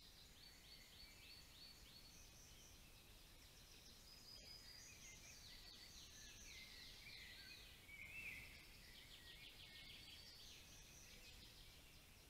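Faint songbird song: several rapid trills of quick repeated high notes, overlapping one another, with one slightly louder call about eight seconds in.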